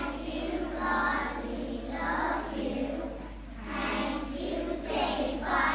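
A group of junior infants (four- and five-year-olds) singing together in phrases of about a second each.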